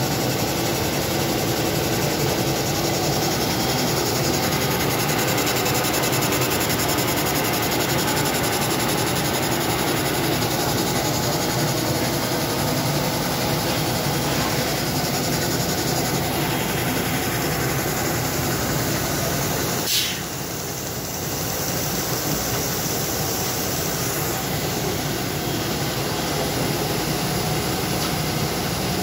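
DGM Smartfold 800SL Classic folder-gluer running at production speed, about 40,000 cartons an hour, giving a steady mechanical noise of belts and rollers. A single sharp click comes about two-thirds of the way through, and the noise is a little quieter for a few seconds after it.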